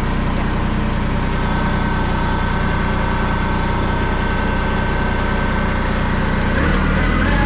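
Kubota L3301 tractor's three-cylinder diesel engine running steadily, with a steady whine that comes in about a second and a half in. The engine note shifts near the end.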